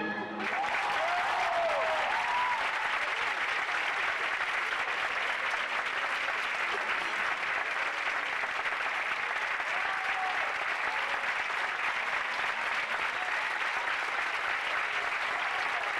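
A theatre audience breaks into loud, sustained applause as the last notes of the recorded ballet music stop, with a few voices calling out over the clapping.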